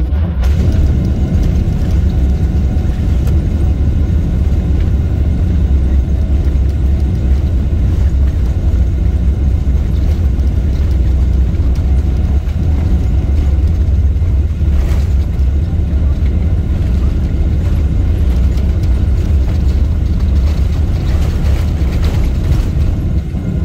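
Airliner's jet engines at takeoff thrust with the wheels rumbling on the runway, heard inside the cabin during the takeoff roll: a loud, steady deep rumble with faint steady whining tones above it.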